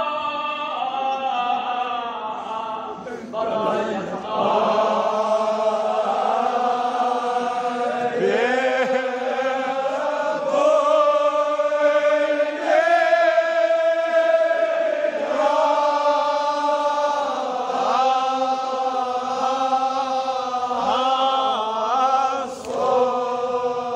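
Male chanting of a Kashmiri marsiya in the Sareer style: long, drawn-out melodic phrases, each held for a second or more before a brief break.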